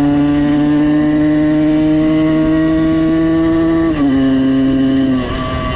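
Simson S51's two-stroke single, tuned to 85 cc, running hard at high revs with its pitch slowly climbing under throttle. About four seconds in the pitch drops sharply with a brief dip in loudness, an upshift, and just before the end the engine note falls and quietens as the throttle eases.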